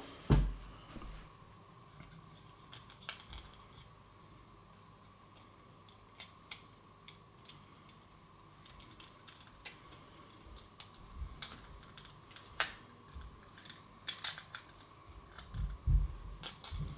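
Irregular small clicks and taps of plastic parts as a plastic quartz clock movement is handled and its pieces are worked apart and fitted back, with a few louder knocks in the last few seconds. A faint steady tone runs underneath.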